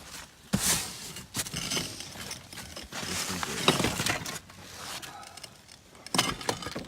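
Breathable roofing membrane rustling and crinkling as it is handled and worked under the old roofing felt, with several sharp knocks in between.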